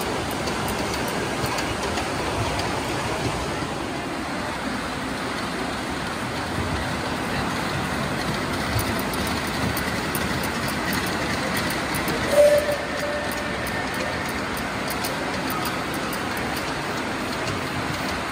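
Steady hubbub of a large exhibition hall: large-scale model trains rolling along the track and the noise of the crowd. A brief, louder pitched sound comes about twelve seconds in.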